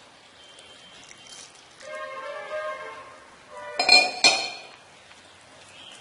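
Stainless steel vessels clinking and ringing while making dough: water poured from a steel pot into wheat flour in a steel bowl at the start, a ringing metal tone about two seconds in, then two sharp clinks a moment apart around four seconds in.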